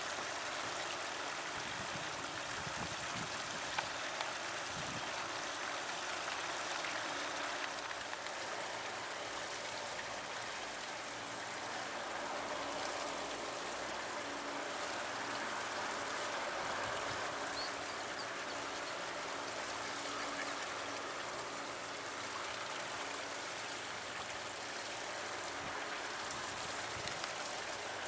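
Steady rush of running water from a stream, an even noise with no break.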